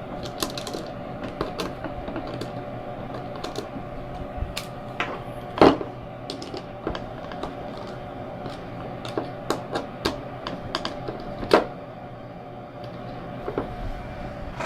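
Small metal clicks and taps of a wrench working nuts tight on a 3D printer's frame, irregular and scattered, with two sharper knocks, one about six seconds in and one past eleven seconds, over a steady hum.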